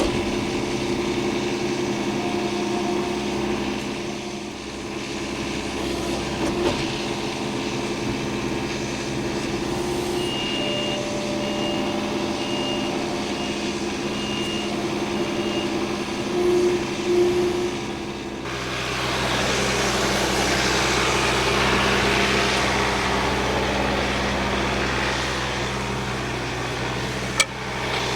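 Engine of a heavy log-handling machine running steadily, with a series of short high beeps around the middle. About two-thirds of the way through it turns louder and noisier as the machine works under load. A few sharp knocks come near the end.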